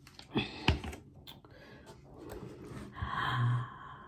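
Plastic squeeze bottle being handled and set down, with two sharp clicks or knocks in the first second and soft handling noise after. A brief hummed vocal sound from a person near the end.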